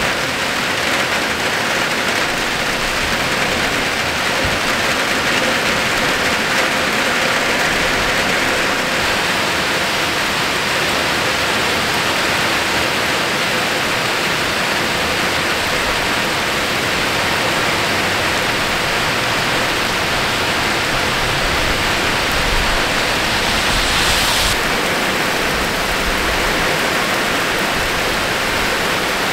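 Heavy rain pouring steadily onto wet pavement and grass, with water splashing on a flooded road surface.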